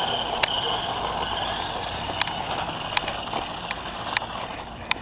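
Toy RC truck's small electric motor and gears whirring as it speeds off, fading as it gets farther away, with a few sharp clicks over it.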